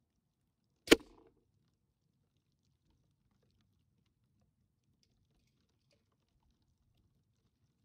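A single shot from a Gamo Swarm Maxxim break-barrel air rifle, one sharp crack about a second in with a brief ringing tail.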